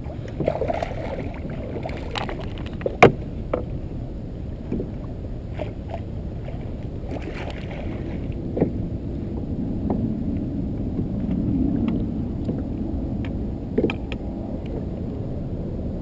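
Water splashing and lapping beside a kayak as a hooked speckled trout is brought alongside and netted. Scattered sharp knocks and clicks of rod and net against the hull; the loudest comes about three seconds in.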